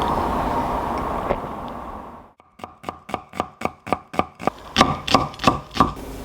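Knife chopping on a cutting board, a quick even run of about four strokes a second, after a steady background hum fades out.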